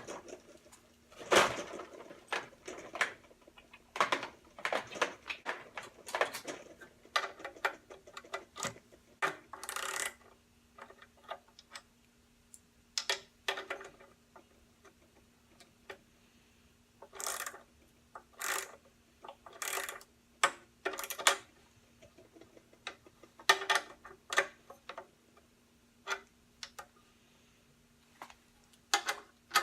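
Irregular metallic clicks and taps as bolts on a bench grinder's fittings are worked and tightened by hand, with short pauses between bouts of clicking.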